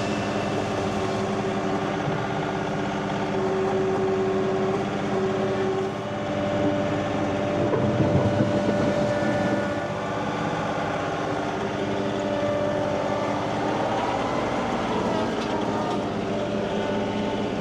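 Tractor engine running steadily, its pitch shifting a little now and then as the load or throttle changes.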